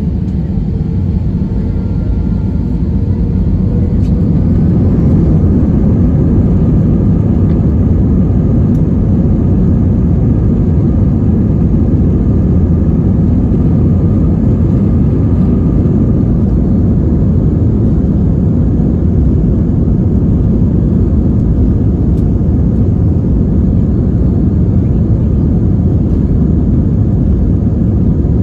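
Airbus A320 jet engines running at high power: a steady, loud, low roar that builds over the first few seconds while a faint whine rises in pitch.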